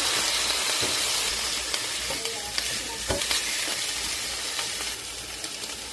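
Food sizzling in a hot frying pan: a steady hiss that slowly gets quieter, with a few light clicks.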